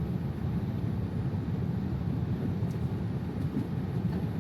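Steady low rumble inside an airliner cabin in flight: engine and airflow noise with no distinct events.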